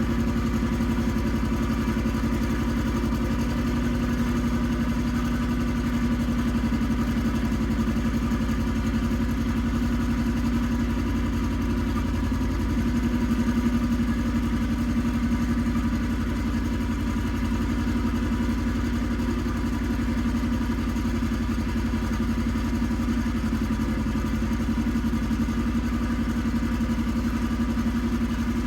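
Iseki TX1300 compact tractor's diesel engine running steadily while ploughing, its pitch dipping briefly about halfway through.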